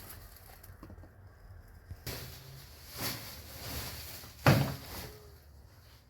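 A single sharp knock about four and a half seconds in, among softer handling noises.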